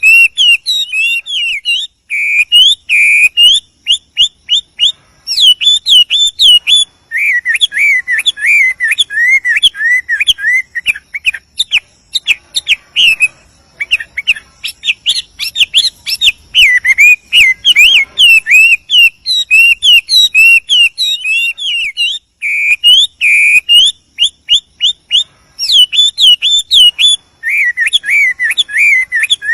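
Male Chinese hwamei (wambi) singing loudly: a long, varied run of rapid whistled phrases and fast repeated notes, with brief pauses between phrases.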